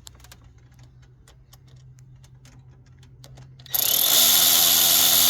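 A few light metallic clicks, then about two-thirds of the way in a handheld power driver with an 8 mm socket starts and runs steadily, spinning a bolt down on the timing chain hardware of a Jaguar 4.2-litre V8.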